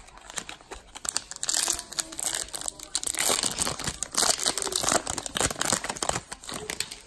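Baseball card pack wrapper crinkling and crackling as it is handled and opened. A dense run of fine crackles starts about a second in and thins out near the end.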